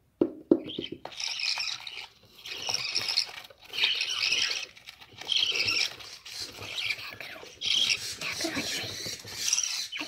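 Budgerigars in the nest box, chicks among them, calling in about six high-pitched bursts of roughly a second each, after two sharp knocks at the start.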